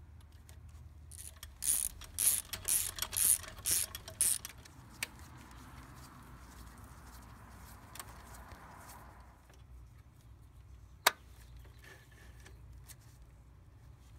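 Hand socket ratchet clicking in about seven quick strokes as a bolt is turned, followed later by a single sharp click.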